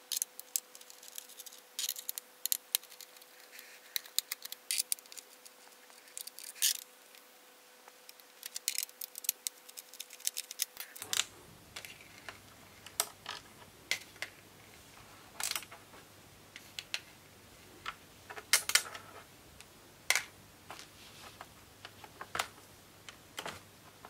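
Faint, irregular clicks and taps of hands handling the plastic underside of an upturned laptop.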